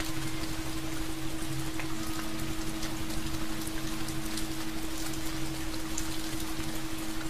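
Steady rain, with many separate drops ticking close by. A steady low hum runs under it.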